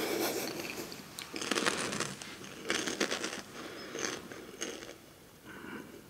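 Close-up biting and chewing of a crunchy salty snack, in a series of crunching bouts about a second apart. The first is the loudest, and the later ones grow fainter.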